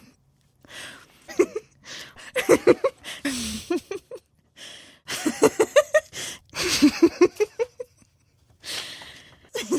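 A woman laughing in several bouts of rapid "ha-ha" pulses, with a loud gasping in-breath before each bout.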